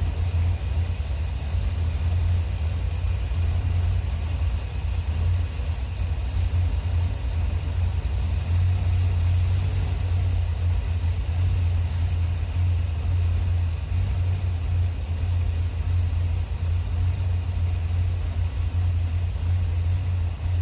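1981 Corvette's 350 V8 idling steadily at about 850 rpm while its carburetor and timing are being tuned.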